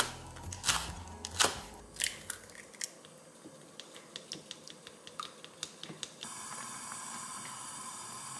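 A Global chef's knife chopping green onions on a wooden cutting board, several sharp strokes. Then wooden chopsticks beat egg in a glass bowl with quick light clicks, and from about six seconds a pot of soup boils with a steady hiss as the beaten egg is poured in.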